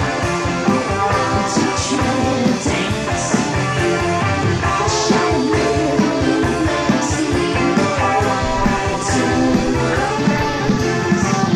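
Rock band playing with drums, electric guitars and bass at a steady beat, with regular cymbal crashes.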